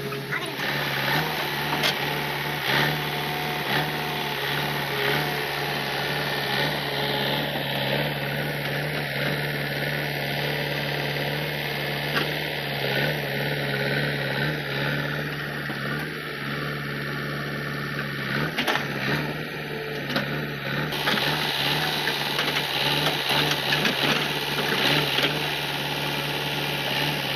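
JCB 3DX backhoe loader's diesel engine running steadily while the backhoe bucket digs into the soil, with a few sharp knocks from the digging.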